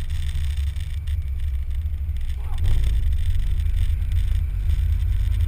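Honda Civic EG8's D15 single-cam four-cylinder running as the car drives, heard as a steady muffled low rumble mixed with wind buffeting on a GoPro mounted outside the car.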